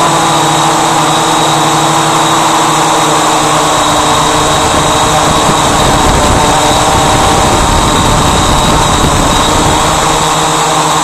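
Electric motors and propellers of a Walkera Voyager 3 quadcopter in flight, heard close up from the aircraft's own camera: a steady multi-tone whine with a high electronic note. A low rumble swells through the middle and fades near the end.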